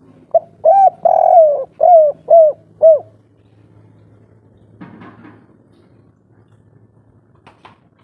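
Spotted dove cooing one song phrase in about three seconds. Two short coos and a long drawn-out coo are followed by the three short closing notes of the 'kuk 3' song type, each note falling away in pitch at its end.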